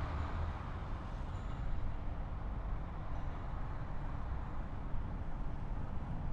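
City street ambience outside a subway station: a steady low rumble of passing road traffic.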